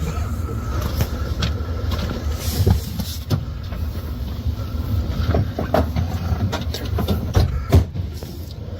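A car engine running close by, a steady low rumble, with scattered short knocks and clicks over it.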